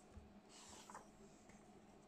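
Faint swish and rustle of a large hardcover picture book's paper pages being turned by hand, with a soft thump near the start.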